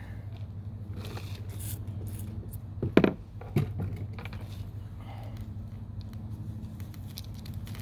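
Handling noises as a degreaser bottle and rag are picked up: a sharp knock about three seconds in and a softer one about half a second later, over a steady low hum.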